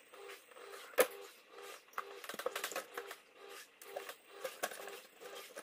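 Knife and metal mesh strainer clicking and scraping while a sea pineapple is cut and cleaned in a stainless steel sink, with a sharp metallic click about a second in and a run of quicker, lighter clicks after it.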